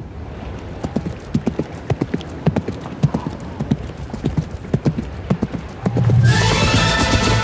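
A horse's hooves galloping, several hoofbeats a second, starting about a second in. About six seconds in, loud film score music with long held notes and a deep bass comes in over the hoofbeats.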